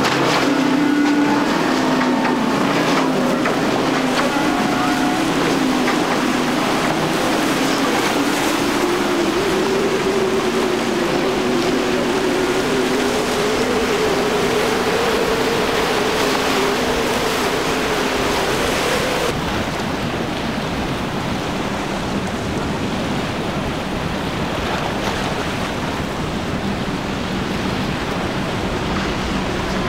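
Yamaha 175 hp outboard on a center-console boat running at speed, its engine tone slowly climbing over the hiss of the wake and wind. About two-thirds of the way through it changes abruptly to the quad Mercury 350 hp outboards of a larger center console running by with a steadier, lower tone.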